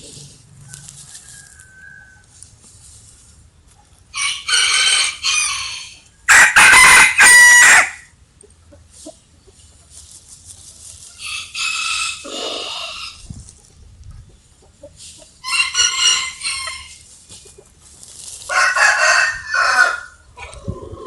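Rooster crowing: five cock-a-doodle-doo crows a few seconds apart. The second, about six seconds in, is much louder than the rest.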